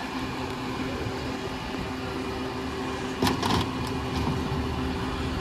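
Diesel Pak-Mor rear loader garbage truck running at idle with a steady hum, and a single sharp metallic clank about three seconds in.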